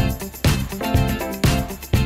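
Background music with a steady beat, about two beats a second, over bass and held chords.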